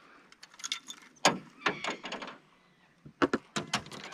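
Clicks, knocks and rattles of fishing gear being handled in a small boat, coming in three short clusters, the loudest knock just over a second in.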